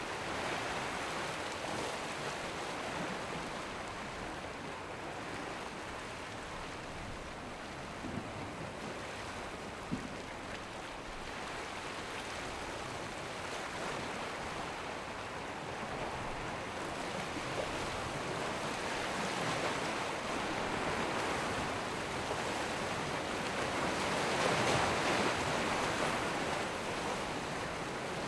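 Ocean waves and surf washing steadily with wind blowing, swelling louder for a few seconds near the end.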